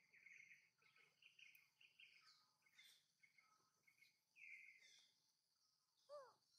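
Faint background bird chirping, many short repeated notes. About six seconds in there is one short call that rises and falls in pitch.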